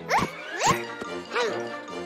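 Cartoon soundtrack music with three quick upward-sliding sound effects, the last one rising and then falling back.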